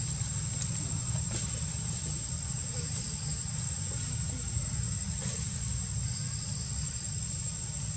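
Insects droning in one steady high-pitched tone over a low, even rumble.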